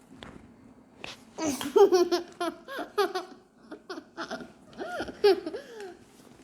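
Young child laughing and babbling in a high voice, a string of short giggling sounds starting about a second in.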